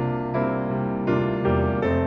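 Gentle background piano music, with a new chord struck about every three quarters of a second.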